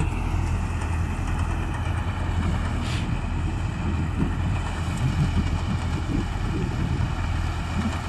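Mini combine harvester mounted on a Farmtrac 6055 four-cylinder tractor, its engine and threshing machinery running with a steady low hum as it harvests wheat.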